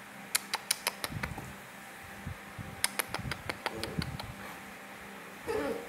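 Puppies play-fighting on a tile floor: two flurries of sharp clicks and scuffling as claws and bodies hit the tiles, then a short cry falling in pitch near the end.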